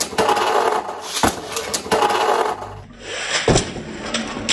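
Two Beyblade Burst spinning tops, Vanish Fafnir and Guilty Longinus, whirring and scraping across a plastic Beystadium floor. They clash with sharp clicks several times as they hit each other.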